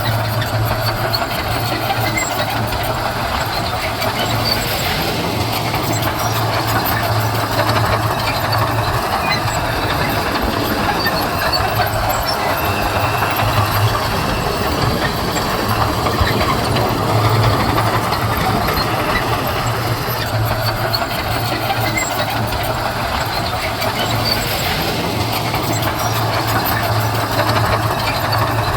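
Heavy earthmoving machine's diesel engine running steadily under work, a constant low hum with a rough mechanical rumble over it.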